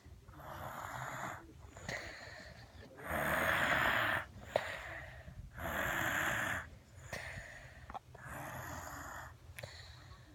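A sleeping baby snoring, one noisy breath about every second, with two louder snores in the middle. A brief click comes about four and a half seconds in.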